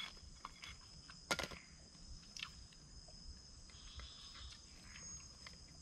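A steady, high-pitched chorus of night insects, with a few sharp clicks and knocks from camp cookware being handled, the loudest about a second and a half in.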